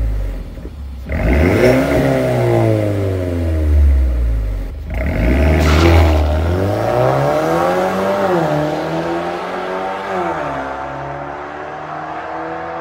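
Mercedes CLA250's turbocharged four-cylinder through a de-catted Armytrix valvetronic exhaust, revved hard with sharp cut-outs between revs. It then accelerates away, the pitch dropping at two upshifts, and fades as the car moves off.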